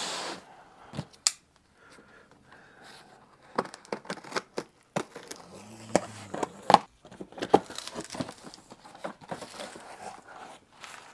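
Cardboard shipping box being cut and pulled open: packing tape slit and torn, cardboard flaps scraping and crinkling, with scattered sharp clicks and rustles that come thickest in the second half.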